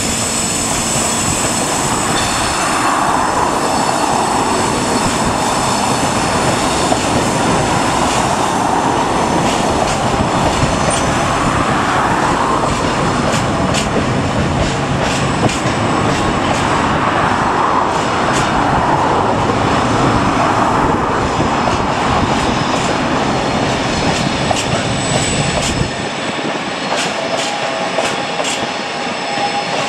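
A long rake of loaded aggregate box wagons rolling past on a tight curve: a steady, loud rumble of wheels on rail, with high squealing tones from the wheels on the curve. Near the end the rumble eases and quick clicks of wheels over rail joints come through more clearly.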